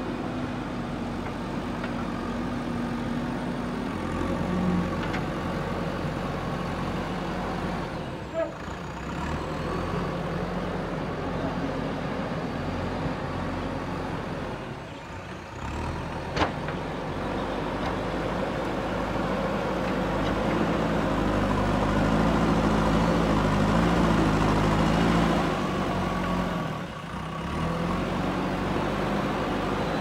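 JCB 3DX backhoe loader's diesel engine running as the machine drives and pushes soil with its front bucket. The engine note rises and falls with the work and is loudest for a few seconds in the second half. One sharp click about sixteen seconds in.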